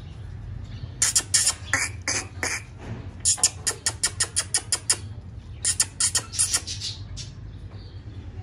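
Chickens squawking in a rapid series of sharp calls, in three bursts between about one and seven seconds in, over a steady low hum.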